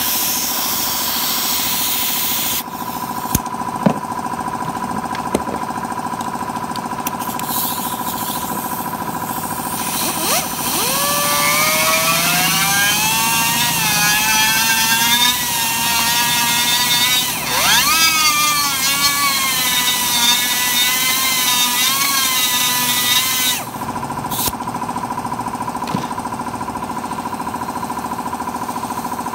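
Plastic welding machine running with a steady high hum, with hiss for the first few seconds. Around the middle a motor whine joins it for about twelve seconds, climbing in pitch, wavering, dropping briefly and climbing again.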